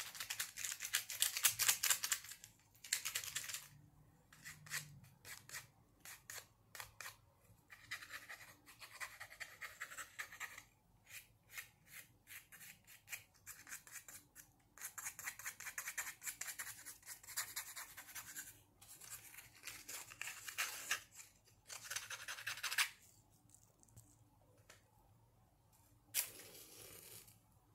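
Close-miked ASMR scratching and rapid clicking from hands working a small object, in dense bursts a second or two long with separate clicks between. About 26 seconds in, a match is struck on a matchbox and flares with a short hiss.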